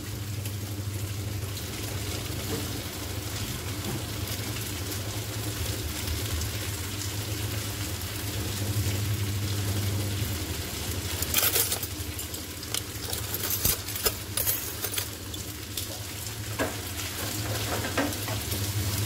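Spaghetti frying in oil in a pan on a gas stove, a steady sizzle over a low hum. In the second half a wooden spatula scrapes and knocks against the pan several times, with one louder burst of sizzling and scraping about eleven seconds in.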